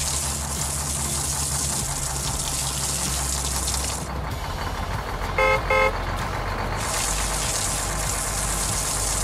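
Street-sweeper truck sounds: a steady low engine rumble under a loud high hiss of sweeping brushes and suction. The hiss drops out for a few seconds in the middle, where a horn toots twice in quick succession, and then the hiss comes back.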